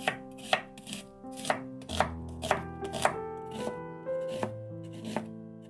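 Knife chopping on a cutting board, sharp cuts about twice a second, over background music with sustained notes.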